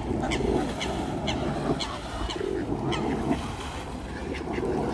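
A bird calling over and over in short, high chirps, about two a second, over low background noise.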